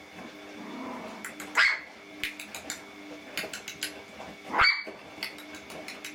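Puppies yapping: two short, high-pitched yaps with a rising pitch, about three seconds apart, with small claws clicking on a tile floor between them.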